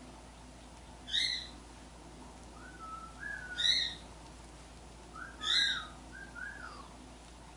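Bird calls in the yard: three short, loud calls about two seconds apart, with softer wavering whistled notes in between and after the last.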